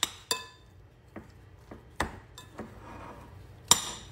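Metal spoon mashing boiled potatoes and air-fried eggplant in a glass bowl, clinking sharply against the glass several times, the loudest strike near the end.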